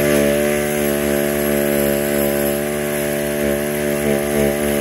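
Six two-stroke weed-trimmer engines of an RC pulling tractor being spun over together: a loud, steady mechanical hum at an even pitch.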